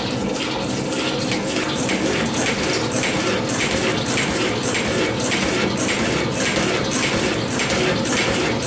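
Deckel FP1 milling machine cutting steel: the machine's drive runs with a steady whine while the cut goes in a regular rhythm of about two strikes a second, the interrupted cut of the cutter meeting the work.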